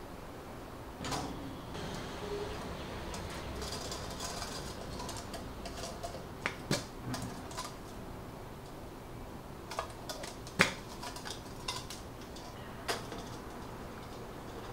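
Thin tinplate biscuit tins being handled on a wooden table: light rustling and a handful of scattered metallic clicks and clinks as the hinged tin halves are opened, closed and set down. The sharpest clink comes about two-thirds of the way through.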